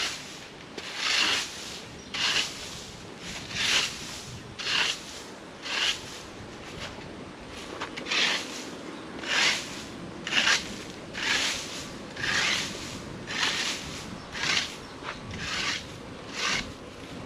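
A broom sweeping leaves over the ground in steady, even strokes, about one swish a second.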